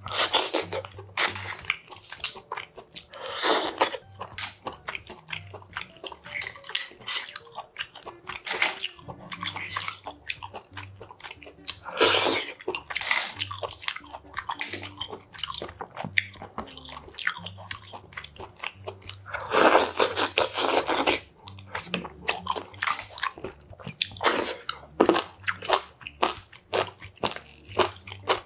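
Close-up eating sounds of clam sujebi soup: chewing and slurping of broth and dough, with many short clicks of clam shells as they are picked out and laid on a plate. A long slurp comes about two-thirds of the way in.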